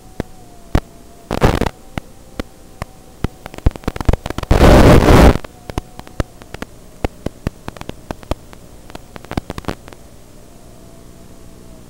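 Analog FPV video receiver's audio channel hissing with static and a faint steady hum. It is broken by scattered crackles and two bursts of loud noise, the longer one about a second long near the middle: the radio link breaking up as the drone flies away from the receiver.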